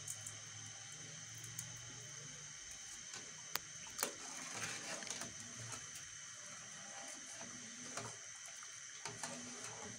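Metal ladle stirring sugar syrup in a steel karahi, the liquid swishing, with a few sharp clinks of metal against the pan.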